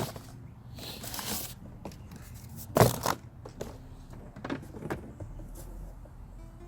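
Handling of the lawn mower's cardboard packaging: rustling and scraping with scattered knocks, and one sharp thump about three seconds in.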